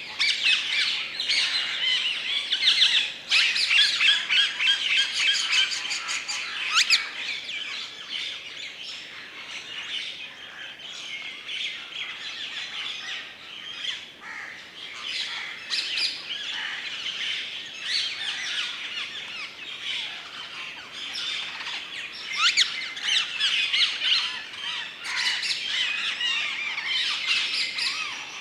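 Woodland birds chirping and calling over one another in a dense, continuous chorus, busiest in the first several seconds and again near the end.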